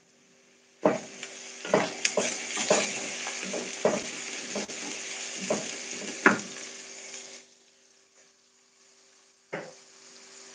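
Chopped onions sizzling in hot oil in a metal pan as a wooden spoon stirs them, the spoon knocking against the pan about a dozen times. The sizzle cuts off abruptly about seven seconds in, and a brief burst of sizzle with one more knock comes near the end.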